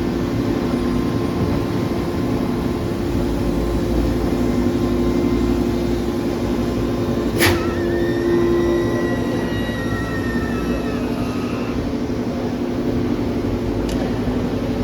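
Industrial pallet press machinery running with a steady hum. About halfway through comes a sharp metallic clang that rings on for a few seconds, and a lighter click follows near the end.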